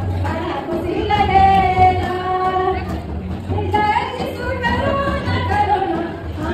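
A woman singing a welcome song through a microphone and loudspeaker, with long held notes over music.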